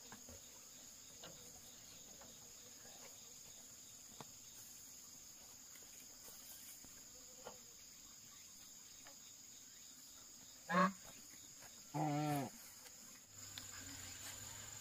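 Steady high-pitched drone of insects, with two animal calls near the end; the second call is longer and wavers in pitch.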